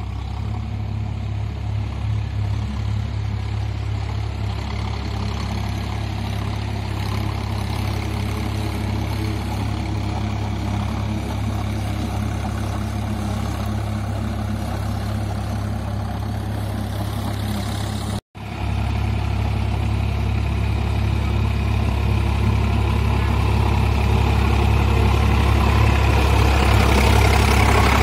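Sonalika DI-47 tractor's diesel engine running steadily as it drives a Shaktiman rotavator through wet, flooded field soil. The drone grows louder toward the end and cuts out for an instant about two-thirds of the way through.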